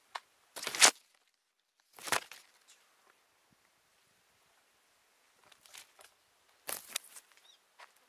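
A few short rustling or scuffing noises at uneven gaps, the loudest about a second in, with near quiet between them.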